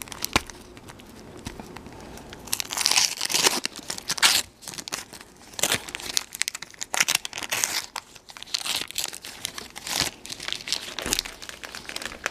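Wax paper wrapper of a Donruss Pop-Up baseball card pack being torn open and crinkled by hand, in irregular tearing and rustling bursts that begin about two seconds in.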